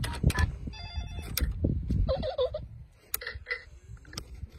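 A VTech baby electronic toy's phone keypad being pressed: button clicks, each followed by a short burst of electronic beeps and tones from the toy's speaker, three times.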